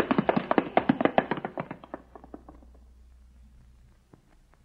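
Radio-drama sound effect: a fast clatter of sharp clicks that fades away over about two seconds, followed by a few scattered knocks.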